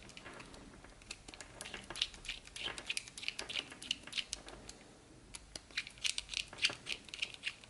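Small screwdriver turning M2 screws into a 3D-printed plastic micro-quad frame, with irregular light clicks and scratching from the screws and the plastic parts being handled.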